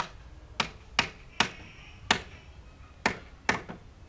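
A hammer striking nails into a wooden chair frame: about eight sharp blows at uneven spacing, some in quick pairs.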